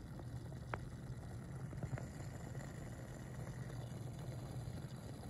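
Water boiling in a glass beaker on a hot plate: a steady low rumbling hum, with a couple of faint ticks.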